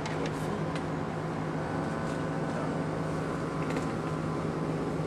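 A steady low hum with room noise, with a few faint clicks.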